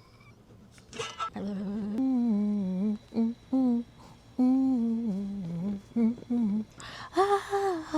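A woman humming a tune in short phrases, held notes gliding up and down, after about a second of quiet; near the end her voice jumps higher in short bursts.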